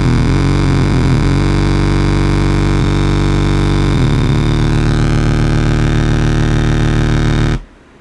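Homemade 555-timer and 4093-chip tone generator putting out a loud, harsh buzzing drone of several pitches at once. The tones shift about half a second in and again around four seconds in, then cut out suddenly near the end.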